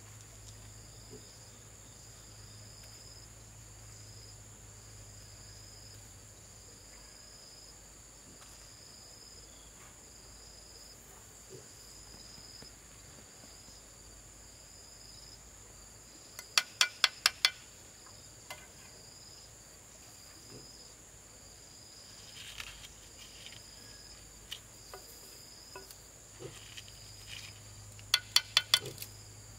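Insects chirping steadily, a continuous high buzz with a fainter chirp repeating about once a second. Twice, about halfway through and near the end, a quick run of five or six sharp taps sounds louder than the insects.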